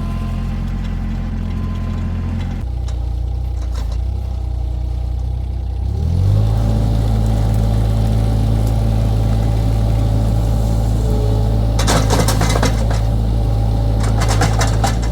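Mini skid steer engine running steadily, then throttling up about six seconds in and holding at the higher speed. Bursts of rattling clatter come over it twice near the end.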